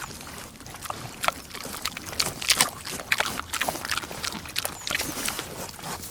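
An animal eating, with irregular crunching, chewing and smacking noises.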